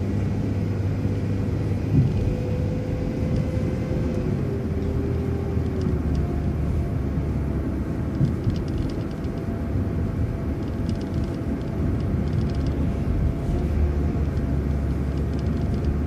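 City transit bus heard from inside while driving: a steady engine and road rumble with a thin drivetrain whine that shifts in pitch, and faint rattling ticks now and then.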